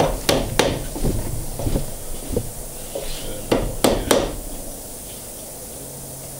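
Magnetic upholstery tack hammer tapping tacks part-way into the wooden seat rail of a chair frame. Three quick taps at the start, a few lighter ones, then three more taps about halfway through.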